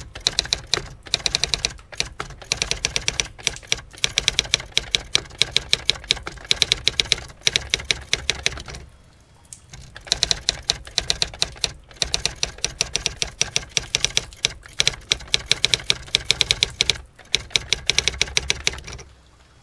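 Typewriter keys clacking in fast runs of strokes, with short breaks between runs and a longer pause of about a second near the middle.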